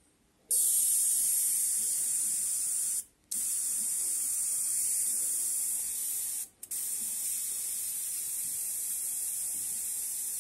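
High-voltage arc from a TV flyback transformer's output, a steady high-pitched hiss that starts about half a second in and cuts out briefly twice, about three seconds in and again past six seconds.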